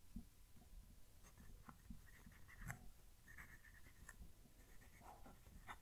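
MaJohn T5 fountain pen's medium nib writing on Oxford Optik notebook paper: a faint scratch of pen strokes with a few light ticks as the nib lifts and lands. The nib is really smooth, with a tiny bit of feedback.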